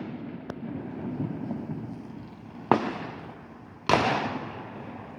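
Fireworks bursting: two sharp bangs a little over a second apart, each trailing off in a long fading echo, with a third bang just at the end.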